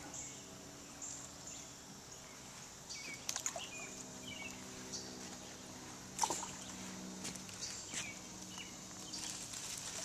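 Faint sounds of water at a pond's surface: small splashes and trickles as fish and turtles feed, with a few sharp splash-like sounds about three and a half, six and eight seconds in. A steady low hum and a few short high chirps run underneath.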